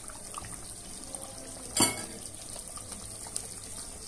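Beef curry simmering in the cooker pot, a steady faint bubbling hiss with small ticks, and one sharp knock a little under two seconds in.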